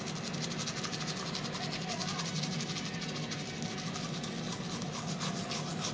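Manual toothbrush scrubbing teeth in quick, even back-and-forth strokes.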